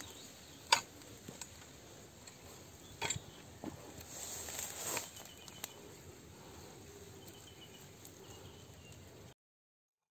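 A metal digging tool strikes into stony soil a few times with sharp knocks while a white yam is dug out, followed by soil crumbling and rustling as the tuber is worked loose and pulled up. The sound cuts out abruptly near the end.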